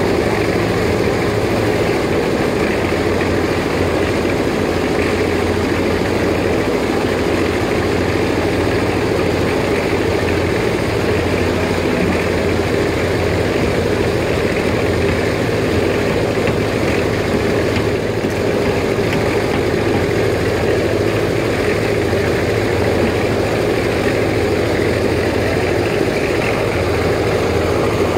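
Diesel engine of a Hyundai crawler excavator running steadily as the machine digs and swings soil: a constant heavy engine drone with no distinct knocks or clanks.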